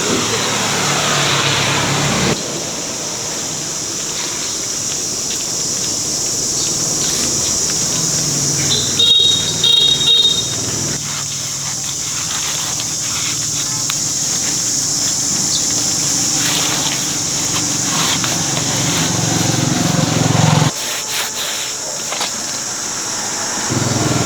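A motor vehicle engine running, with a few short horn toots near the middle.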